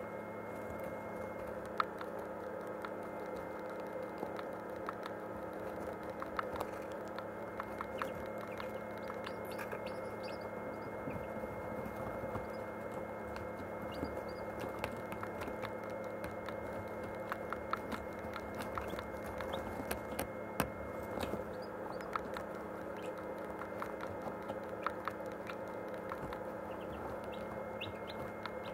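Irregular faint clicking from a Canon IXUS 230 HS digital camera's own mechanism, a fault of the camera, heard over the steady hum of an incubator.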